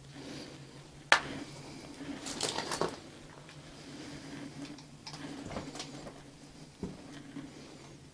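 Footsteps and handling noises of someone moving through a derelict room with straw and debris on the floor. There is a sharp knock about a second in, then a short run of crackling taps, then scattered lighter scuffs over a faint steady hum.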